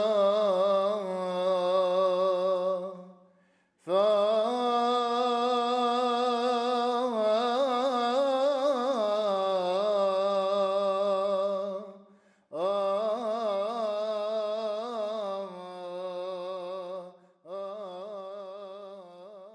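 Solo male voice chanting a Syriac Orthodox liturgical melody in long, ornamented phrases with a wavering pitch, broken by short pauses for breath about three, twelve and seventeen seconds in. The last phrase is fainter.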